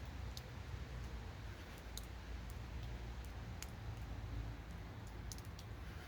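Raindrops dripping onto a hard surface near the microphone: a few sharp, irregular ticks over a low, steady rumble.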